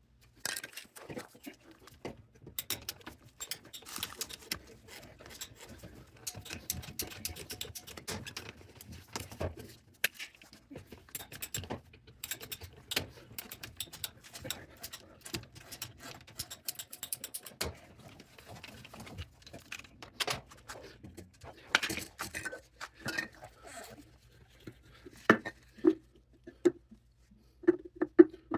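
Plumbing parts and hand tools being handled during work on a kitchen sink drain: irregular clicks, knocks and scraping, with a few short squeaks near the end.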